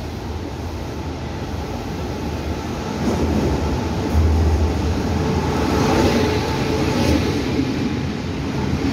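Taiwan Railway Tze-Chiang express train, an E1000 push-pull set, pulling into the platform. Its rolling rumble grows louder about three seconds in as the locomotive arrives, is loudest as it passes a second later, then continues steadily as the carriages roll by.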